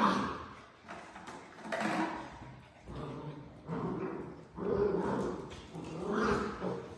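Eight-week-old border collie puppies growling and yapping as they wrestle, in short bursts about once a second.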